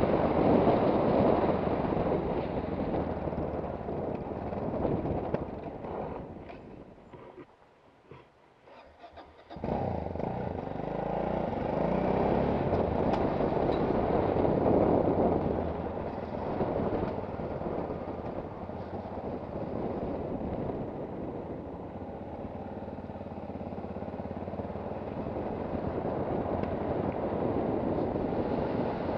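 Yamaha XT660Z Ténéré single-cylinder engine running on the move, heard under a heavy rush of wind on the helmet microphone. The sound fades almost to nothing about six seconds in and comes back abruptly near ten seconds.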